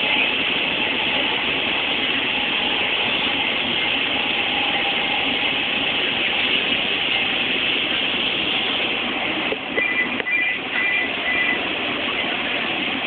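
Steady running noise of a train, heard from inside the carriage. About ten seconds in, a few short, high ringing tones sound briefly over it.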